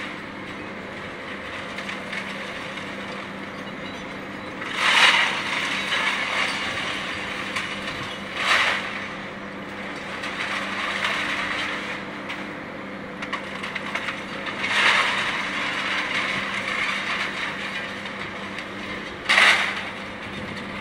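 Scrap metal crashing and clattering as it is handled by an Atlas material handler's lifting magnet: four loud crashes a few seconds apart, the first and third trailing into a couple of seconds of rattling. Under them runs the steady hum of the machine's engine.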